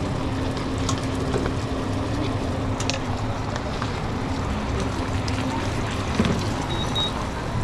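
Steady running din of a commercial kitchen, with a low hum under it and scattered light clicks and knocks from work at the stations.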